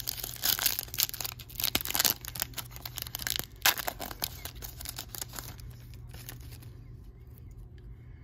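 A foil trading-card pack wrapper being torn open and crinkled, in dense crackling rustles for the first several seconds that die down near the end, over a steady low hum.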